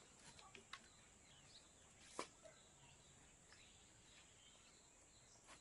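Near silence: a faint steady high hiss with a few soft clicks and one sharper tap about two seconds in, as the woven cotton tape of a charpai is pressed and pulled tight by hand against its wooden frame.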